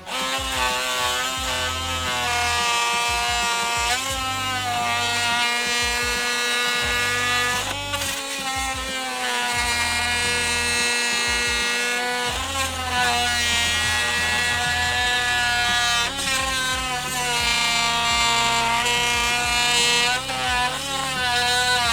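Oscillating multi-tool with a fine-toothed Spyder blade cutting through PVC: a steady loud buzz whose upper tones rise and fall every few seconds as the blade bites and eases.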